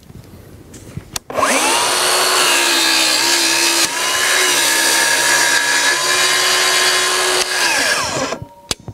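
Festool HKC 55 EB 18 V cordless circular saw making a plunge cut into a board along its guide rail: a click, then the motor spins up quickly a little over a second in and runs steadily through the cut. Near the end it winds down with a falling whine, followed by a couple of sharp clicks.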